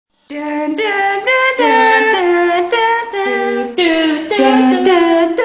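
Voices singing a short tune a cappella, in held notes of about half a second each, at times in two parts.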